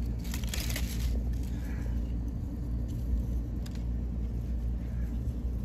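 Fingers scraping and digging in loose soil to uncover tortoise eggs, in short scratchy bursts, over a steady low rumble.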